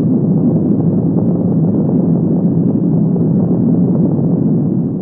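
Loud, steady low rumble, a nuclear-explosion sound effect that begins to die away at the very end.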